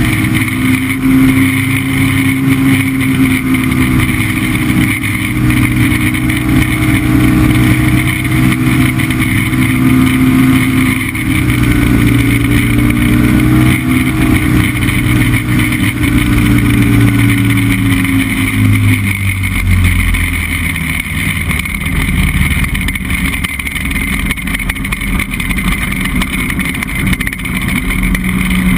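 Chinook Plus 2 ultralight's engine and propeller running steadily at cruise power in flight. About two-thirds of the way through, the engine note drops lower as the power comes back while the plane descends to the field for landing.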